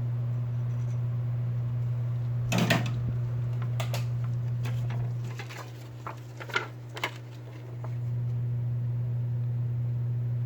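Hot-air rework gun blowing with a steady hum while it heats the phone's charging flex cable to loosen its adhesive. The hum dips for a couple of seconds near the middle. A few sharp clicks of tools on the phone sound over it.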